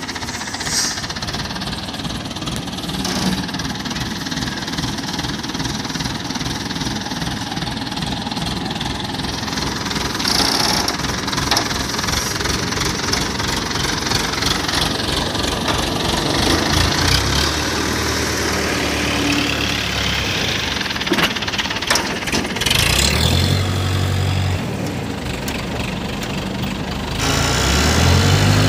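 Diesel engine of an ACE 14XW pick-and-carry hydra crane running with a clattering beat as the crane drives with a diesel generator set hanging from its boom. In the second half the engine note shifts up and down several times and grows louder near the end.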